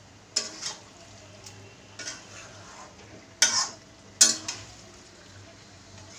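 Flat metal spatula scraping and knocking against a metal kadai as marinated chicken is stirred in hot oil, with a steady faint sizzle underneath. Several strokes, the loudest two about three and a half and four and a quarter seconds in.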